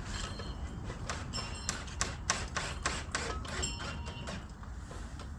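A run of irregular sharp knocks and taps from hand tools at work on wood and metal fittings. They come thickest between about one and four seconds in, and a few leave a short metallic ring, over a steady low rumble.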